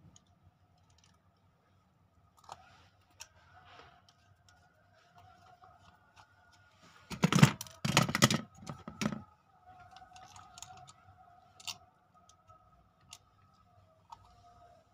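Plastic wall-socket faceplate and screwdriver being handled during refitting: scattered light clicks and taps, with a burst of several loud knocks about seven to nine seconds in as the faceplate is pressed against the wall box.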